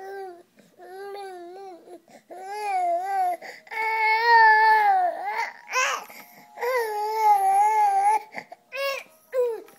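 Infant crying and whining in frustration at a toy: a string of short, wavering wails with brief gaps, the longest and loudest about four seconds in.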